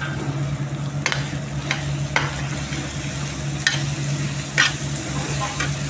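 Sliced potatoes and onions sizzling in ghee in a frying pan while being stirred, with a steady frying hiss. The stirring utensil knocks and scrapes against the pan about five times.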